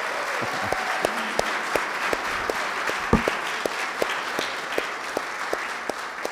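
Congregation applauding. One clapper close to the microphone stands out above the crowd, clapping steadily at about three claps a second.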